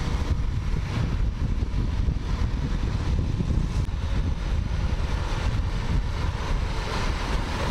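A motorcycle riding at road speed: steady wind rumble on the microphone over engine and road noise.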